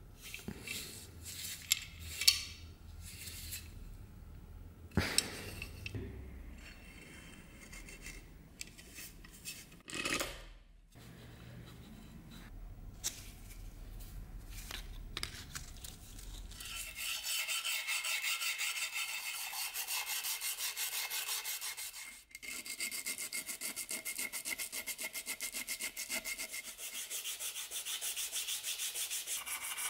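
Hand sanding of metal with P120 abrasive paper. The first half is scattered handling clicks and knocks. From about halfway on there are fast, even back-and-forth rubbing strokes, with a brief break.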